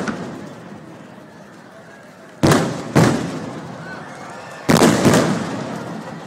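Aerial firework shells bursting overhead: four loud booms in two pairs about half a second apart, the first pair about two and a half seconds in and the second pair near the end, each trailing off slowly.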